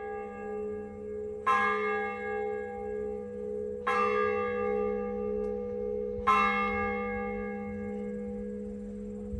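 Church bell tolling three slow strokes about two and a half seconds apart, each leaving a long humming ring.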